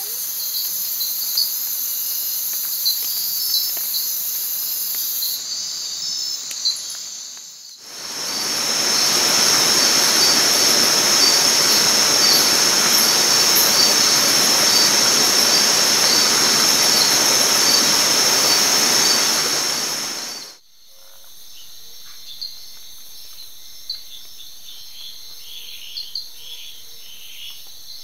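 Insect chorus, crickets among them, shrill and steady. About eight seconds in, a much louder, even hiss takes over for about twelve seconds and then cuts off suddenly. A quieter chorus with scattered clicks and chirps follows.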